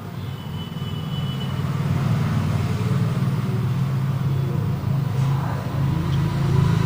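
Low engine rumble of a motor vehicle running, growing louder over the first two seconds and then holding steady.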